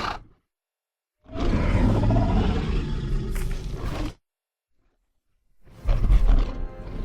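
The end of one Giganotosaurus roar, then a full roar of about three seconds: a film creature voice built from recordings of stallions, a lion and alligator bellows. A deeper, low rumbling sound starts near the end.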